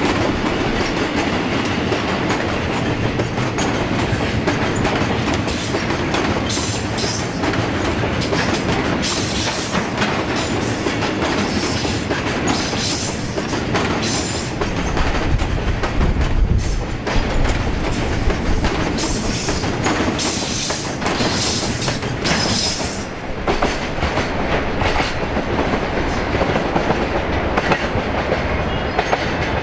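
Freight train of Taki 43000-series tank wagons passing slowly, its wheels clacking steadily over the rail joints. Brief high-pitched wheel squeals come now and then.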